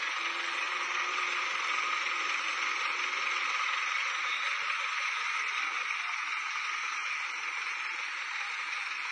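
Diesel engine of a Halla wheeled excavator running steadily while it digs and loads soil.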